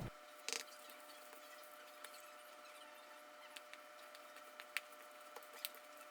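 Near silence: a faint steady hum with a few scattered faint clicks, the loudest a short cluster about half a second in.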